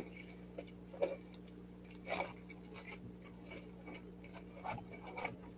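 Clear plastic packaging of a diamond painting kit crinkling and rustling as it is handled and folded, with scattered light clicks and taps.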